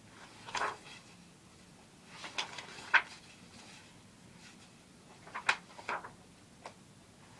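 Pages of a new softcover logbook being turned by hand: a few short paper rustles and flicks, with a sharp snap about three seconds in.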